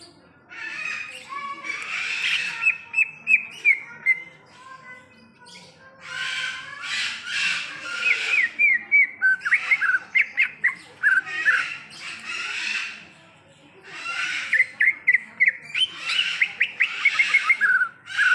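Green leafbird (cucak ijo) singing in repeated bouts of scratchy notes and quick runs of short sliding chirps, with brief pauses between bouts.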